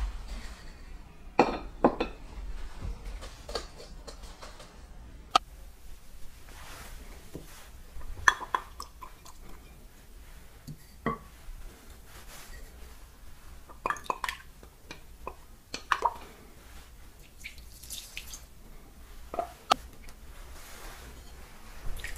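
Hands rub and loosen buckwheat flour in a lacquered kneading bowl. Then come scattered light clinks, knocks and drips as water from a small glass is poured into a ceramic suribachi mortar of ground shiso leaves, with its wooden pestle, and the mixture is tipped into the flour.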